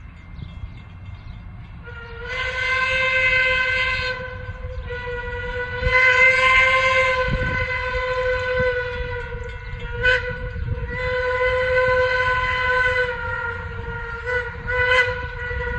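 Steam locomotive whistle sounding a series of long blasts, several steady tones at once, over the low rumble of the approaching train.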